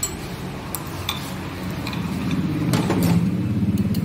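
A vehicle engine running steadily, growing louder in the second half, with a few light metallic clicks of tools.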